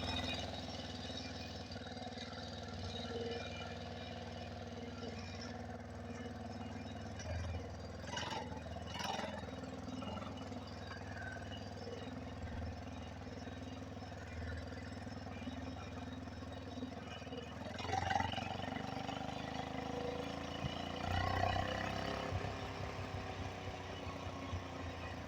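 Small 49cc four-stroke engine on a homemade motorized bicycle running steadily at a high idle, with a couple of short louder surges in the second half.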